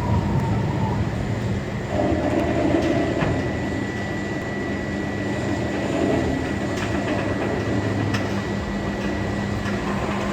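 Roller coaster train running on its track: a steady rumble with a faint, steady high tone above it.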